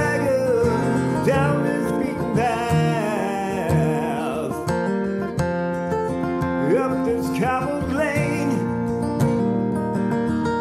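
Music: acoustic guitar accompaniment with a melody line over it that slides and wavers in pitch.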